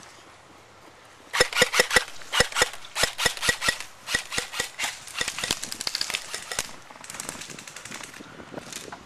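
Airsoft guns firing a rapid string of sharp shots, about four to five a second, starting about a second and a half in and stopping a little after the middle, with a few fainter shots near the end.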